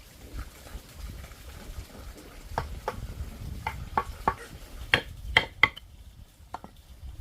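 A series of sharp metallic clinks and knocks, about nine of them, the loudest a few seconds in, over a low rumble.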